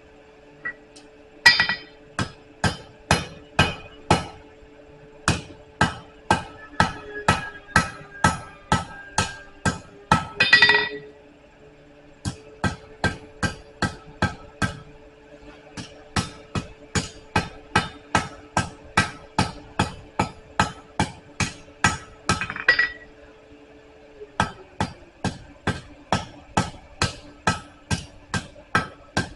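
Blacksmith's hammer striking hot round steel on an anvil, drawing out a taper: ringing blows about two to three a second, in runs broken by short pauses. A steady hum sits underneath.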